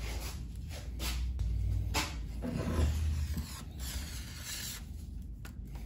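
Stihl HT-101 pole saw's splined steel drive shaft being slid up through its tube and liner: faint scraping with a few light clicks.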